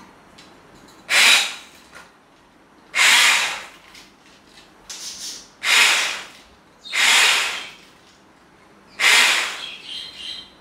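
Hand-held electric blender with a whisk attachment run in five short bursts of about a second each in a jug of coffee, sugar, milk and ice, whipping the cold coffee to a froth.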